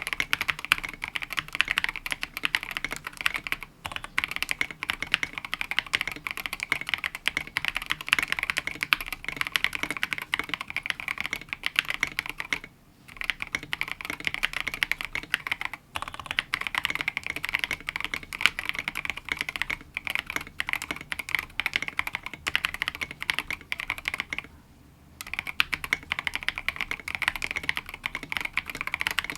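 Fast continuous typing on a KBD67Lite R2 gasket-mounted mechanical keyboard with a polycarbonate plate, C³EQUALZ Tangerine linear switches and SA-profile keycaps, with brief pauses twice.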